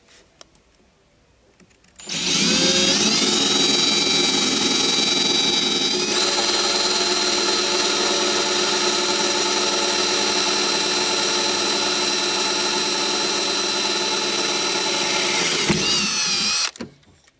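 Cordless drill drilling a screw hole into a car's metal battery safety terminal. It starts about two seconds in, winds up in pitch, runs steadily with a high whine, and stops shortly before the end.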